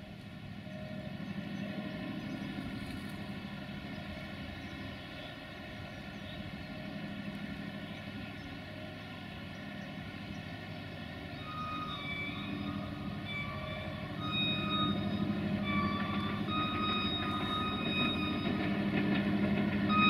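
Diesel locomotive horn sounding a run of short blasts, the notes stepping between pitches. The blasts are faint at first and grow louder and more frequent from about halfway, over the steady, rising sound of the approaching train's engine and wheels.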